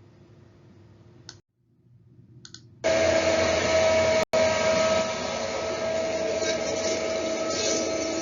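Heavy tree-clearing machine running: loud, steady engine and mechanical noise with a high, steady whine over it. It cuts in abruptly about three seconds in after a faint hum, and drops out for an instant a little past four seconds.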